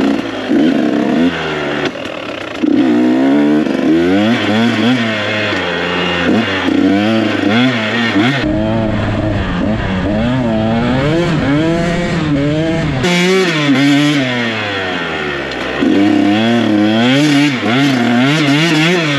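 Dirt bike engine revving up and down as it is ridden along a trail, its pitch rising and falling every second or so with the throttle. A stretch of low rumbling noise runs through the middle.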